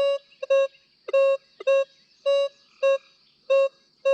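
Minelab Equinox 800 metal detector giving its target tone as the coil is swept back and forth over a US nickel: a run of about eight short beeps, all at the same mid pitch, roughly two a second. The nickel is reading a target ID of 12.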